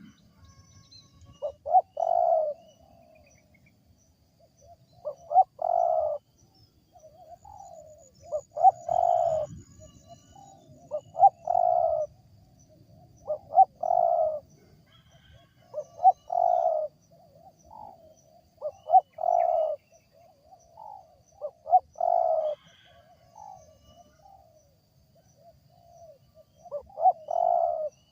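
Wild spotted dove (tekukur) cooing, a short multi-note phrase repeated about nine times at intervals of roughly two and a half to three seconds. Its call is unusual for the species.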